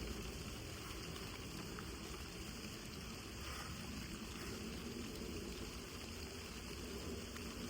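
Rain falling steadily, with a few separate drops ticking.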